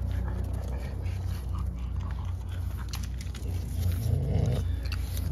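French bulldog puppies playing together, with small mouth and paw noises and a louder burst about four seconds in, over a steady low hum.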